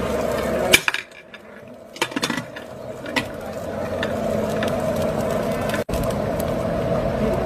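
Mutton karahi broth boiling hard over a gas flame, a steady rumbling bubble as the liquid is cooked down. The sound drops quieter for a couple of seconds about a second in, with a few sharp clicks.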